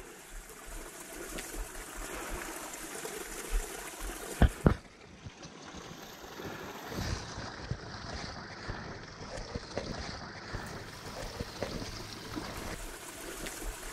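Hot spring water trickling and running in a small rock-lined pool. A few sharp knocks come about four seconds in.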